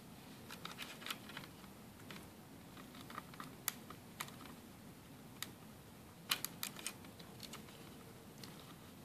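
Faint, irregular plastic clicks and taps as fingers work a CMOS battery's small two-wire connector into its socket on a laptop motherboard, with a quick run of louder clicks about six seconds in. The fit is fiddly and takes several tries.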